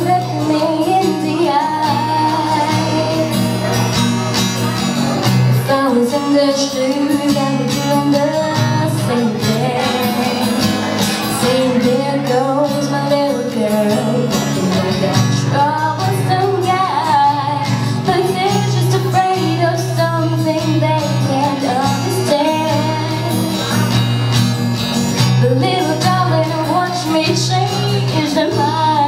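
A woman singing a pop ballad into a microphone, accompanied by an acoustic guitar.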